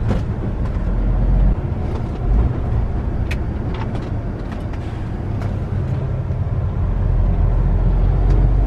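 Semi truck's engine and road noise heard inside the cab while driving: a steady low rumble that eases off about one and a half seconds in and builds again near the end.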